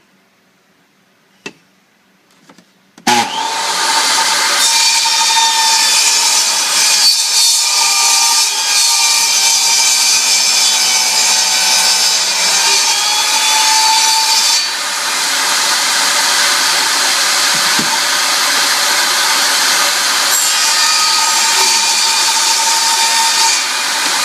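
Table saw switching on about three seconds in and running steadily while cutting a laminate floor plank. Its sound shifts a little about halfway through.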